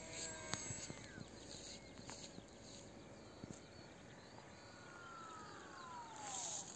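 Faint whine of a throttled-back 2217 2200kV brushless motor and 6×5.3" pusher prop on a small electric RC jet. The pitch falls steadily over about two seconds as the plane passes low on its landing approach. A hiss rises near the end as it skims the grass.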